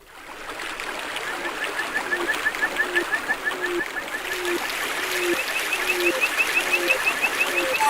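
Opening of a 1991 techno/deep house record: a water-like hiss fades in over the first second, with a fast run of short chirps and a short falling tone repeating about twice a second, before the beat enters.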